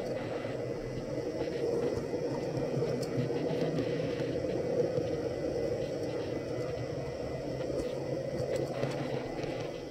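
Model train running steadily along the layout's track: the hum of its small electric motor and the rolling of its wheels on the rails, with faint irregular clicks.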